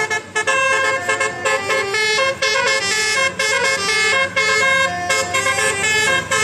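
Bus 'telolet' musical air horn of the Basuri type, playing a fast tune of short horn notes that jump from pitch to pitch, several tones sounding together.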